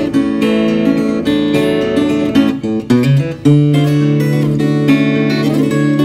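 Batiksoul Bird and Roses #2 all-rosewood parlor acoustic guitar played fingerstyle: a melody of plucked notes over bass notes, with a brief break about halfway through before a low bass note rings on under the melody.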